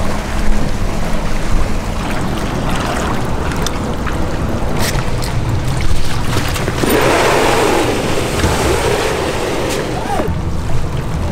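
Wind rumble and water noise while a small inflatable dinghy runs, then a few knocks and a louder rushing scrape about seven seconds in as the inflatable dinghy is hauled out of the water onto a dock.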